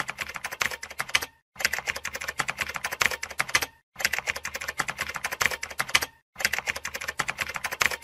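Computer keyboard typing sound effect: rapid keystrokes in runs of about two seconds, stopping briefly three times.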